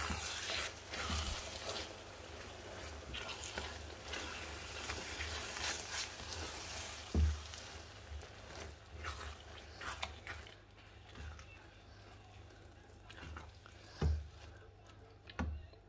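Minced meat in tomato sauce sizzling in a frying pan while a spatula stirs and scrapes through it, busiest in the first half. A few dull knocks stand out, about seven seconds in and twice near the end.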